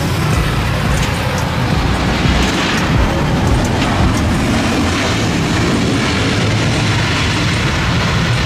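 Boeing 737 jet airliner touching down and rolling out: a steady, loud jet-engine noise over a deep low rumble.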